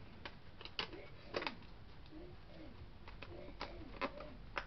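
Light, irregular clicks and taps of Blu-ray discs being handled in a clear plastic case, with a couple of louder clicks as a disc is worked off its hub.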